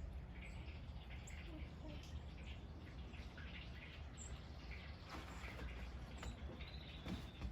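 Faint, scattered bird chirps over a steady low rumble of outdoor background noise.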